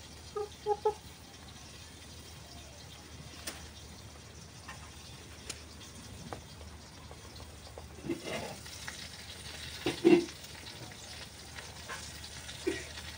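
A white broiler hen clucking softly: three quick clucks about half a second in, then louder ones around eight and ten seconds in, with a few faint clicks as it pecks at the dirt. A steady faint hiss lies under it.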